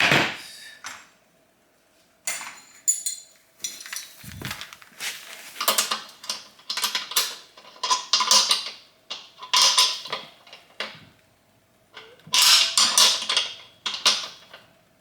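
Metal parts and hand tools clinking and scraping against each other in irregular bursts of short clanks and rattles, as steel legs and nuts are worked by hand.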